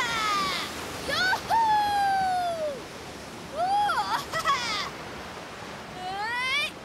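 A cartoon character's excited wordless whooping cries while surfing: four drawn-out calls that swoop up and down in pitch. Under them runs a steady rush of surf and splashing water.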